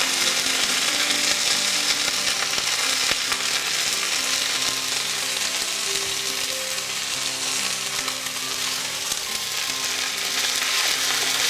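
Freshly washed thumbai (Leucas) flowers frying in hot oil in a frying pan, a steady loud sizzle. The water on the wet flowers makes the oil splutter.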